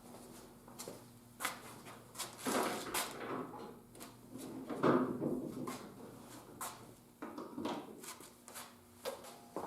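Scattered clicks, knocks and short scrapes of hand tools and parts as a Jeep door's interior panel and handle are taken apart, the loudest scrape about five seconds in.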